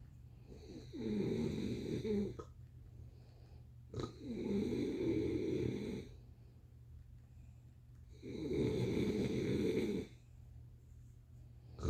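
Snoring in sleep: three long snores in a steady rhythm about four seconds apart, each under two seconds long, over a steady low hum. A short sharp click comes just before the second snore.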